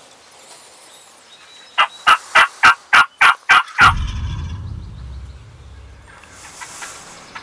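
A wild turkey gobbler gobbling once: a fast rattling run of about eight notes lasting about two seconds, starting about two seconds in.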